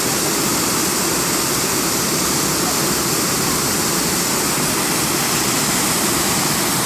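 Waterfall: water pouring and rushing over rock in a steady, loud hiss.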